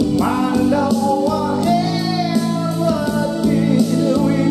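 A man singing into a microphone over recorded music with guitar, holding a long wavering note in the middle.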